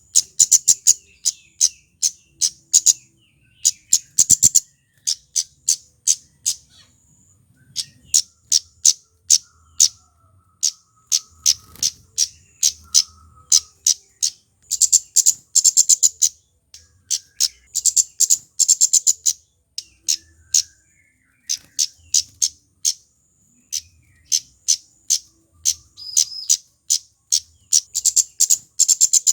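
A male kemade flowerpecker singing energetic, fast runs of sharp, very high-pitched ticking 'cit' notes, with short pauses between the runs.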